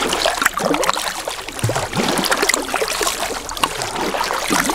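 Kayak paddle strokes: water splashing and dripping off the paddle blade, a dense, steady run of small splashes and gurgles.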